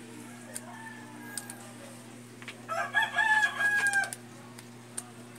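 A rooster crowing once, a call of about a second and a half starting near the middle. Before and after it there are a few light metallic clicks of pliers working at the brake master cylinder's lock ring, over a steady low hum.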